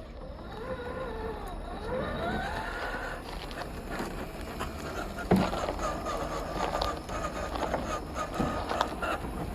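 Electric motor and gear drive of a 1:10 scale RC crawler whining, rising and falling in pitch as the throttle changes, with scattered knocks and scrapes from the tyres and chassis on the trail; a sharp knock about five seconds in.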